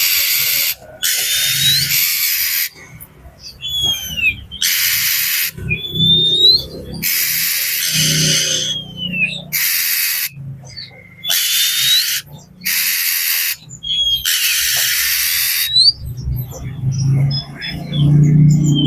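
Oriental magpie-robin calling agitatedly: repeated harsh, rasping scold calls, each about a second long, alternating with short whistled notes that slide down or up.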